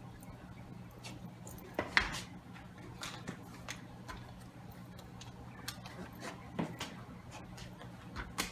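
Pan of vegetables on a gas burner crackling softly, with scattered small pops over a steady low hum; a single louder knock about two seconds in.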